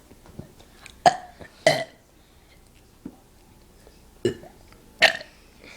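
A person burping: four short, loud burps, two close together about a second in and two more near the end.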